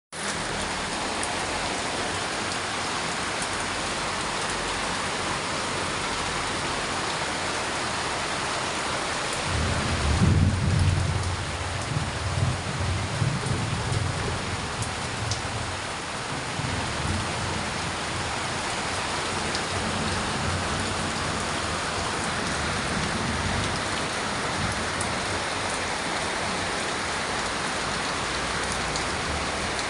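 Heavy rain pouring steadily. About ten seconds in, a low rumble of thunder swells, peaks and rolls away over several seconds, with fainter rumbles after it.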